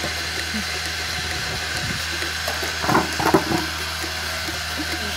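Portable bucket milking machine running: a steady low hum from its vacuum pump with a constant hiss of air and milk drawn through the hoses into the canister. A brief louder burst of noise about three seconds in.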